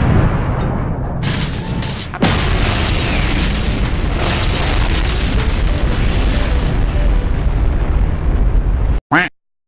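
Explosion sound effects: a heavy booming blast rumbling on, then about two seconds in a second, steadier explosion rumble takes over and runs long before cutting off suddenly near the end.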